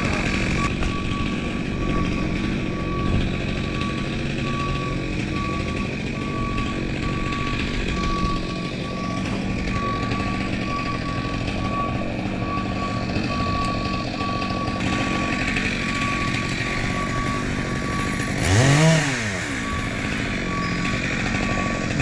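A construction machine's reversing alarm beeps over and over in an even rhythm, over the steady rumble of a running engine. About three-quarters of the way through, one brief louder sound sweeps up and then down in pitch.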